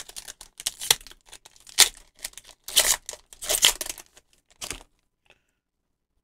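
Foil wrapper of a Pokémon trading-card booster pack being torn open and crinkled by hand, a run of uneven rips and crinkles that stops about five seconds in.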